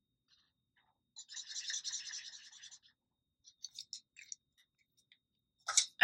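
Felt-tip marker rubbing back and forth on paper for about a second and a half, faint and scratchy, as a small section is coloured in, followed by a few light ticks.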